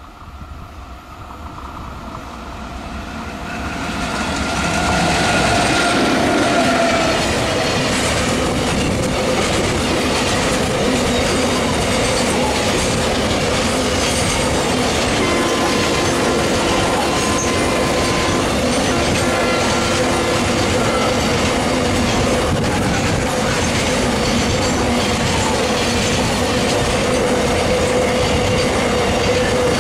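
An Indian Railways WAG-7 electric locomotive hauling a container freight train, growing loud over the first five seconds as it comes up and passes close by. Then the steady clickety-clack of the container wagons' wheels running over the rails, with thin wheel squeals now and then.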